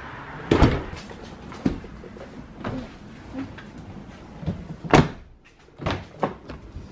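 Doors being shut: a clunk shortly after the start, a few lighter knocks, then the loudest slam about five seconds in as the Jeep Wrangler's door closes, followed by two more knocks.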